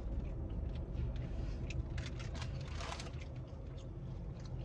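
Eating sounds: faint chewing and scattered small clicks, with a short rustle of food packaging about two to three seconds in, over a steady low hum in the car cabin.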